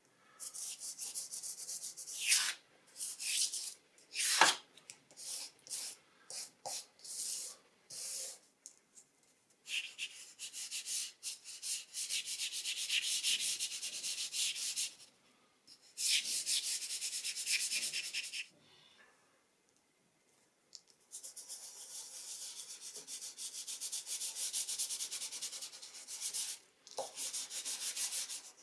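Soft dry pastel stick scraping across thin drawing paper. It starts as short separate strokes, then runs as longer stretches of steady back-and-forth rubbing as colour is laid down. A couple of sharp clicks come in the first few seconds.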